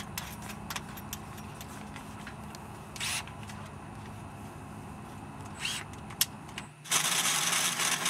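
Cordless drill spinning a 2¾-inch hole saw in a tube notcher, cutting a notch into a 1.5-inch tube: it starts about seven seconds in as a loud, steady rasping of the saw teeth on metal. Before that there is only a low steady hum with two short rising whirs.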